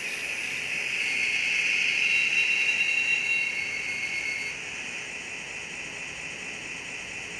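MRC sound decoder in an N-scale GE AC4400 diesel model playing engine sound through its tiny speaker as the train comes to a stop. A high, steady brake squeal swells and cuts off about four and a half seconds in, leaving the engine sound idling.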